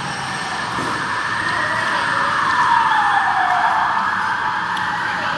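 Steady rushing noise of passing road traffic, growing louder to a peak about three seconds in.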